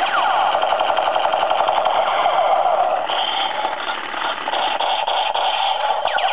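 Electronic sound effects from a battery-powered toy gun's small speaker: a fast rapid-fire rattle of repeated pulses, opening with a few falling laser-like sweeps.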